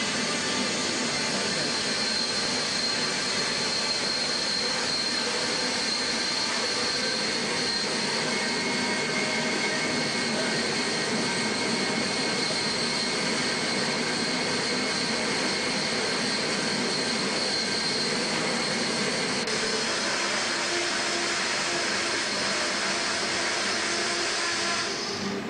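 Homemade bandsaw running with a steady high whine over a constant mechanical drone; the sound stops abruptly near the end.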